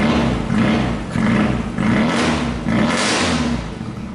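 Rover Mini's A-series four-cylinder engine, fitted with a narrow-piped aftermarket 'Yankee' muffler, revved loudly in about five quick throttle blips. Each rev rises and falls in pitch, and the engine drops back and quietens near the end.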